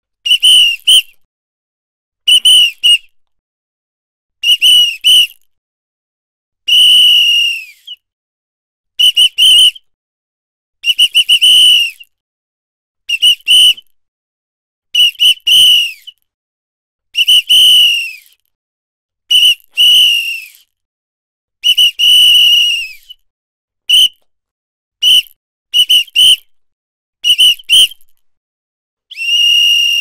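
Indian bus conductor's metal pea whistle blown in repeated high-pitched blasts about every two seconds: mostly quick double and triple toots, with some longer single blasts whose pitch sags as they trail off.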